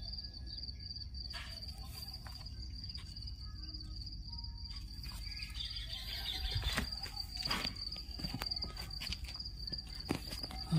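An insect trilling steadily on one high pitch, over the low rumble and occasional light knocks of a handheld phone being moved through garden plants.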